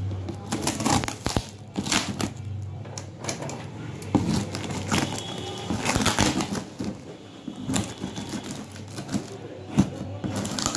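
A cardboard shipping box wrapped in plastic and packing tape being handled and shifted: irregular crinkling of plastic and tape with scrapes and knocks of cardboard.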